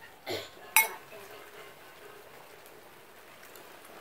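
Spoons on plates during a meal: one sharp clink a little under a second in, then a few faint taps and scrapes.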